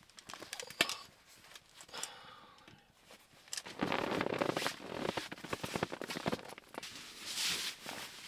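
A few sharp clicks and knocks, then, from about four seconds in, a sleeping bag's fabric rustling loudly as it is pulled out and spread.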